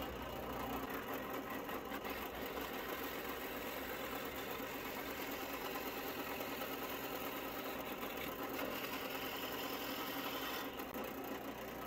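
Drill press running steadily, its 1/2-inch bit boring into a wooden dowel: a motor hum mixed with the rasp of the bit cutting wood. The higher cutting hiss falls away near the end.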